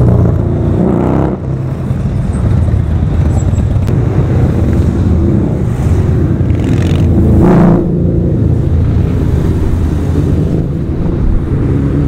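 Loud motorcycle engines rumbling as several bikes ride past in traffic. One revs briefly about halfway through, and near the end an engine accelerates with rising pitch.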